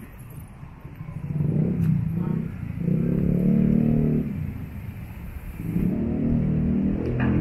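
Motor vehicle engines passing on a street: one rises in pitch and falls back about three seconds in, and another comes up near the end.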